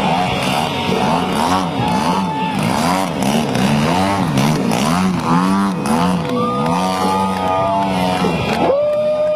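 Gasoline engines of radio-controlled model airplanes running, their pitch repeatedly rising and falling as the planes throttle and pass by. Another engine runs at a steady low pitch underneath.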